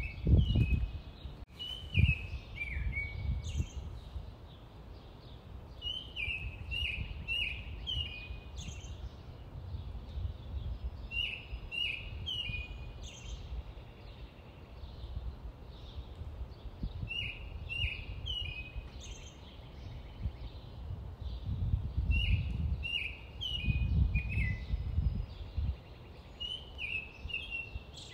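A songbird singing short phrases of several quick, downward-sliding chirps, a phrase about every five seconds, over a low rumbling background noise that swells a few times.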